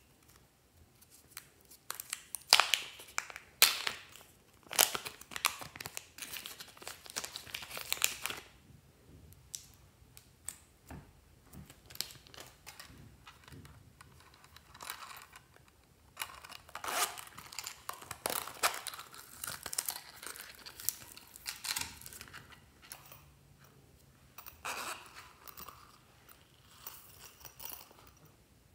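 Small plastic packets crinkling and being torn open, with coloured shavings shaken out of them; the crackly rustling comes in two main spells with quieter handling between.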